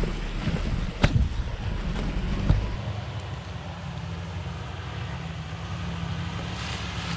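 Jeep Wrangler driving slowly over a rough forest trail: engine and tyre rumble with wind on the microphone, and two sharp knocks as it jolts over ruts, about a second in and again a second and a half later. Then comes a steadier low engine drone as the Jeep crawls along.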